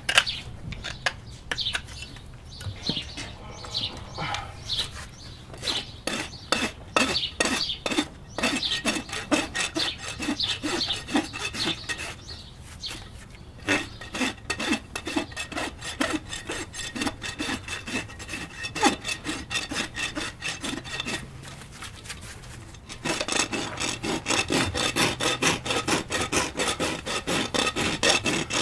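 Hand tools trimming a barefoot horse's hoof: a hoof knife scraping the sole in short strokes, then a farrier's rasp filing the hoof in steady back-and-forth strokes. The strokes grow louder and come closer together over the last five seconds.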